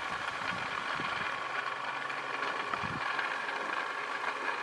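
Small DC motor running steadily under battery power: an even whine made of several steady high tones.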